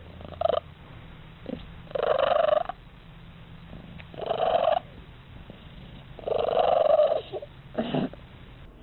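A cat meowing over and over: five drawn-out, pitched calls roughly two seconds apart, the first and last short.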